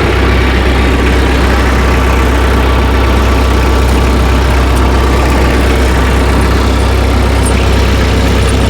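Tractor engine running steadily with a deep low hum.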